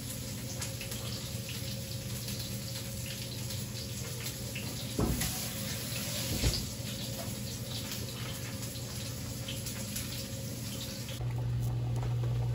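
Kitchen tap running water steadily over a low hum, with two knocks about five and six and a half seconds in. The hum grows louder near the end.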